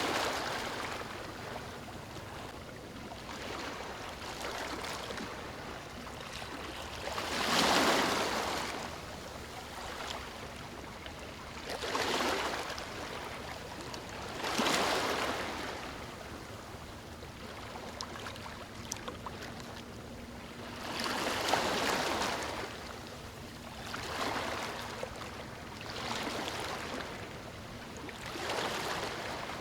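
Ocean waves breaking and washing up a beach, a surge of surf every few seconds over a steady hiss of water, with the biggest breakers about 8 and 15 seconds in and again past the 20-second mark.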